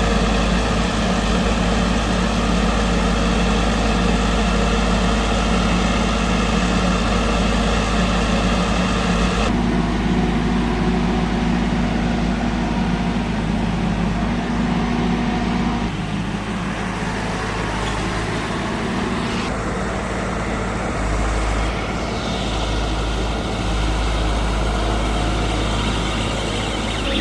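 Engine and hydraulics of a LENDA LD 50 mini piling rig, a mini excavator with a drilling attachment, running steadily under load. Its tone shifts suddenly a few times.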